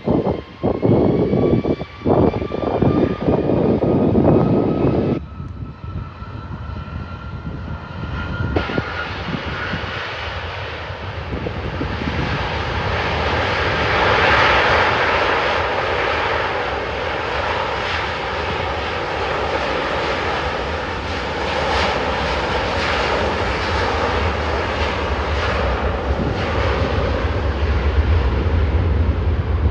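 Jet airliner on its takeoff run at full throttle: the engines' whine rises steadily in pitch over the first several seconds, then a broad steady roar swells to its loudest about halfway and holds, with a deep rumble growing near the end. Rough buffeting noise fills the first five seconds, then stops suddenly.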